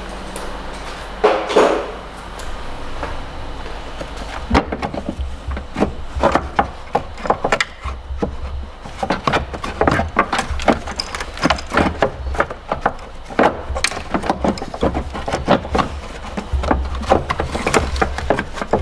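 Irregular clicks and knocks of hand tools and parts being worked in a car's engine bay, a few a second, over a low steady hum, with a brief louder noise about a second in.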